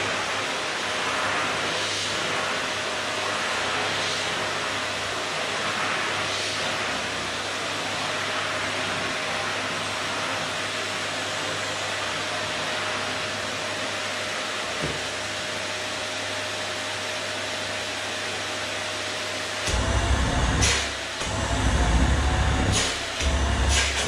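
Canister vacuum cleaner running with a steady motor whine, its floor head swept back and forth over a wooden floor about every two seconds. Near the end come a few loud low thumps and sharp knocks.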